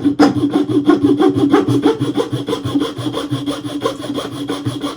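Hand file rasping quickly back and forth across a wooden handguard, shaping the wood to fit: a fast, even run of strokes.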